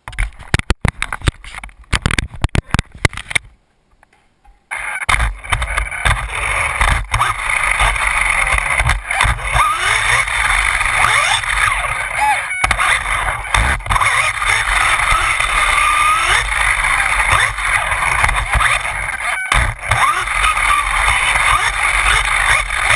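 Losi Mini 8ight RC buggy driving: a few seconds of sharp clattering knocks, a brief pause, then its electric drivetrain running continuously with a high whine that rises and falls with the throttle.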